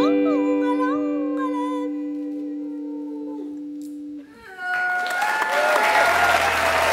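The final held chord of a song, sustained voice and instrument tones, fades out over about four seconds. After a brief gap the audience breaks into applause, with a long wavering whoop over it.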